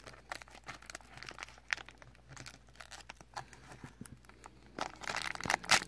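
Black plastic blind bag crinkling as it is handled and cut with a knife, with scattered small crackles. Near the end the crinkling grows louder and denser as the bag is torn open.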